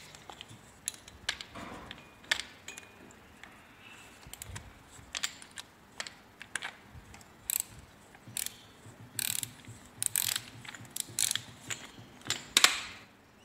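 Irregular small metallic clicks and scrapes as the oil filter cover nuts on a Royal Enfield Classic 350 engine are unscrewed and handled.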